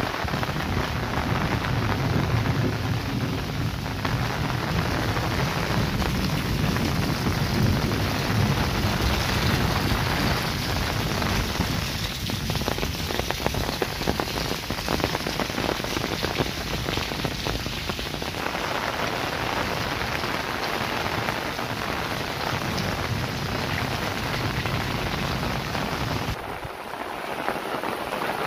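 Steady rain falling on a paved lane, spattering on wet concrete and walls, with a low rumble under it for much of the time.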